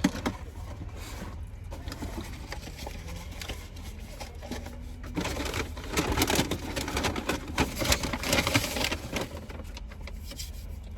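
Crunching and crackling of crispy fried chicken being chewed close to the microphone, thickest for about four seconds in the middle, over a steady low hum.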